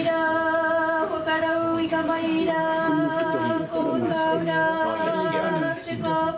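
Voices singing unaccompanied: one long note held steady throughout, with other voices moving in pitch below it.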